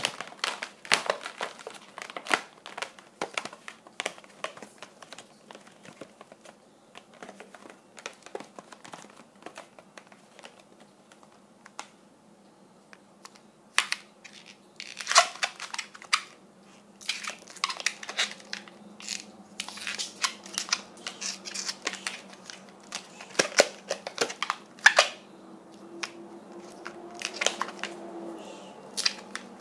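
Latex modelling balloons rubbing and squeaking under the fingers as they are twisted and shaped by hand. The sound comes as an irregular string of short crinkly squeaks and creaks, busiest in the second half.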